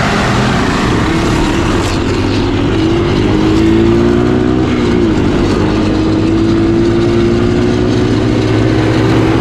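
Three-wheeler engines running: a steady engine hum close by, with a second engine revving up, easing off briefly about halfway, then pulling up again as it is ridden around the course.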